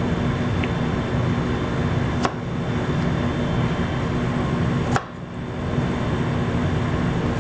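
Steady machine hum of room ventilation, with two sharp knocks, about two seconds in and about five seconds in.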